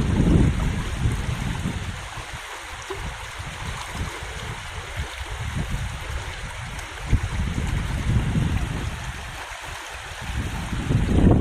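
Rushing river water around a kayak. Wind buffets the microphone at the start and again near the end.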